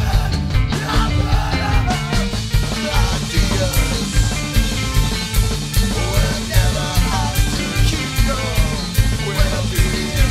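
Loud recorded band music with heavy bass and a steady beat about twice a second, with bending, wavering pitched lines above it.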